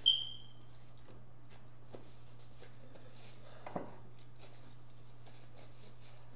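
Quiet meal sounds at a table: a sharp ringing clink of tableware right at the start, then faint small ticks and a brief crackle a little under four seconds in, over a steady low hum.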